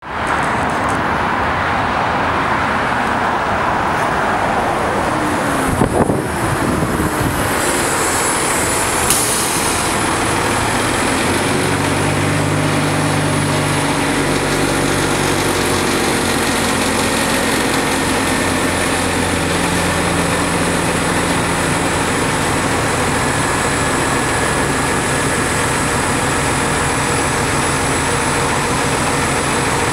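New Flyer DE60LF diesel-electric hybrid articulated bus (Cummins ISL diesel with GM-Allison EP50 hybrid drive) pulling in and then running at a standstill with its doors open, a steady low engine hum strongest in the middle, over continuous freeway traffic noise.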